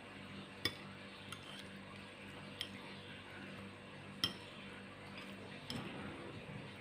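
Faint sharp clinks of an eating utensil against a dish, four single clicks spread over the seconds, then a short run of small scrapes and knocks near the end.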